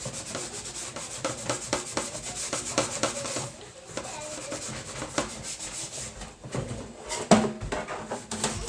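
Repeated scrubbing strokes on a plastic pocket-bike fairing piece, rubbing grease and grime off it, with a single knock about seven seconds in.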